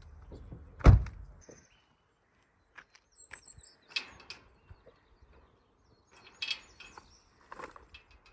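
A car door shutting with a single heavy thunk about a second in. Scattered light clicks and rattles follow, and a short run of high bird chirps comes partway through.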